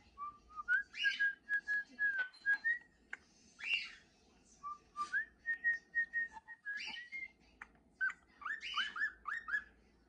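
Cockatiels: a young male whistling his song, the whistling that marks him as a male, in a string of clear held notes stepping upward, with a quick run of short rising whistles near the end. Other cockatiels answer with louder harsh calls a few times.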